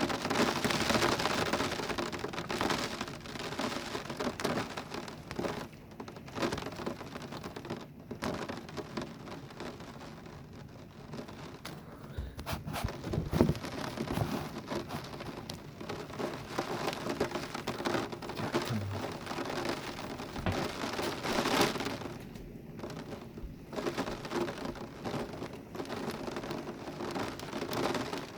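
Heavy rain of a thunderstorm squall pouring down in gusting wind, the noise surging and easing. It is loudest at the start, with further surges and a few deep rumbles about halfway through and again around three quarters of the way in.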